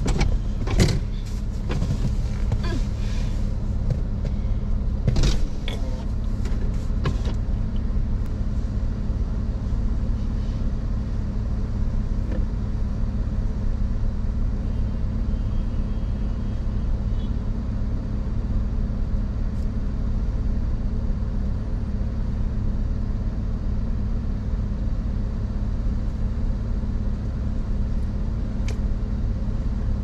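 Steady hum of a car idling with its air conditioning running, heard from inside the cabin, with a few knocks and rustles of movement in the first several seconds.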